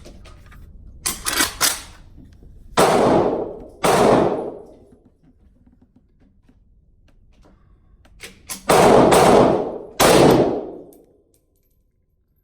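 Four loud gunshots in two pairs, each pair's shots about a second apart, every shot ringing out for about a second. A few light sharp clicks come about a second in.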